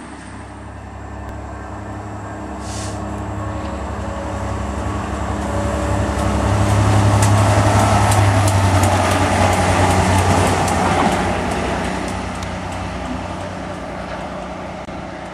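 Class 67 diesel-electric locomotive, with a two-stroke V12 engine, passing through at speed. Its steady engine note builds, is loudest as the locomotive goes by, with a run of sharp clicks, then fades away.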